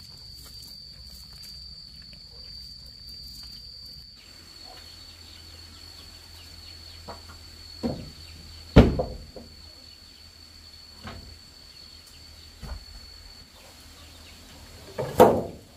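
Several knocks and thumps, the loudest about halfway through and another near the end, from the dismantled chicken coop being handled and lifted. Under them runs a steady high insect drone.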